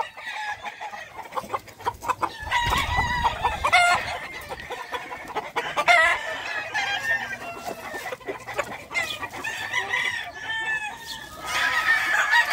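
Gamefowl roosters crowing several times, with clucking between the crows.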